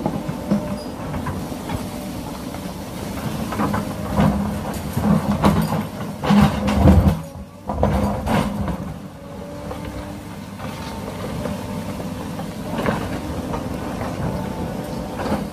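Small electric gear motors of a wired remote-control toy excavator whirring through plastic gearing as the arm and bucket move, with clicks and knocks that are busiest and loudest a little after the middle.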